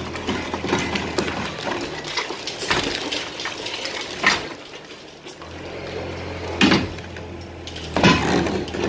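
Excavator engine running while concrete and brick rubble clatters and crashes down during demolition of a house, with heavy knocks about four seconds in, near seven seconds and near the end. The engine's low hum grows louder a little past halfway.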